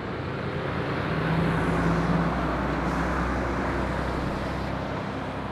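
Mercedes-Benz articulated lorry with a bulk tipper trailer driving past close by, its diesel engine and tyres building to a peak about a second and a half in, then fading slowly as it moves away.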